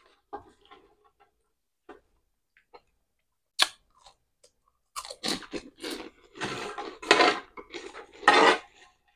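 Close-up crunching and chewing of crispy fried pork rinds (chicharon) in the mouth: a few small clicks at first, a sharp crack about three and a half seconds in, then a dense run of loud crunching from about five seconds in.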